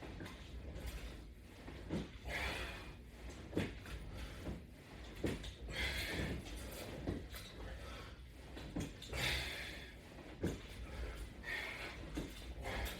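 Sit-ups done on straps anchored to a latch bar: a hissing breath out roughly every three and a half seconds, with creaks and sharp knocks from the straps and fittings between.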